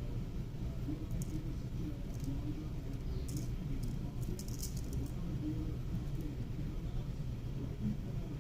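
Faint clicks and small rattles of kitchen handling over a steady low hum.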